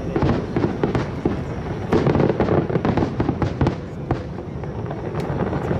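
Aerial fireworks display: a rapid barrage of bangs and crackling bursts, densest a couple of seconds in and easing off about four seconds in.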